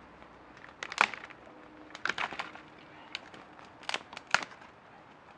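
Smouldering wood campfire crackling, with sharp pops and snaps in four short clusters over a faint steady hiss.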